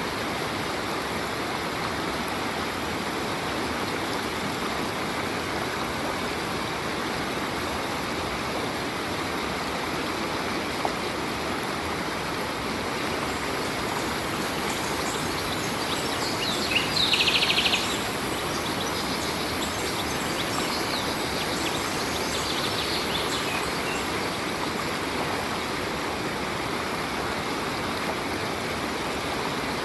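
A stream running steadily over rocks. About 17 seconds in, a bird gives a short, rapid trill.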